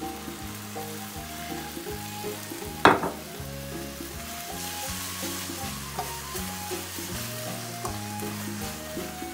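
Potatoes and sauce sizzling as they fry in a metal pan, stirred with a spatula, with one sharp knock about three seconds in.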